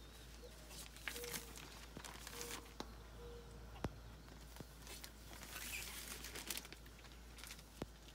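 Thin clear plastic poultry shrink bag crinkling in bouts as it is opened and handled, with a couple of sharp clicks.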